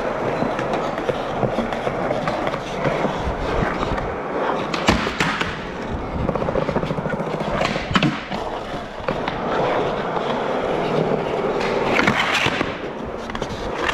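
Skateboard wheels rolling over a smooth skatepark floor, with a few sharp clacks of the board hitting ledges and the ground, the loudest about five, eight and twelve seconds in.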